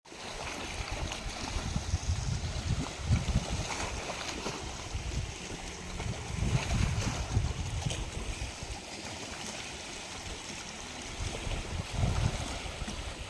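Wind buffeting the microphone in uneven, rumbling gusts over a steady rush of sea surf.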